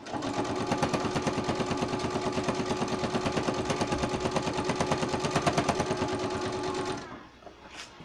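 Electric sewing machine running steadily at speed, the needle stitching in a fast, even rhythm over a steady motor hum as it top-stitches through layers of cotton fabric and batting; it stops about seven seconds in.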